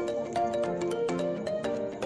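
Background music: a light, melodic tune of quick struck notes over held tones.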